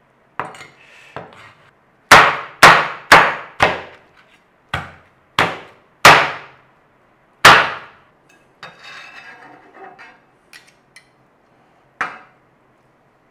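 A knife chopping hard through roast bone-in chicken thighs onto a chopping board: four heavy chops in quick succession about two seconds in, four more spaced out after them, a light scraping, and a last chop near the end.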